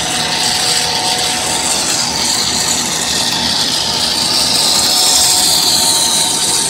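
Twin-screw snack food extruder running as it pushes out twisted strands of puffed dough: a steady mechanical din with a high whine that drifts slightly up and down in pitch.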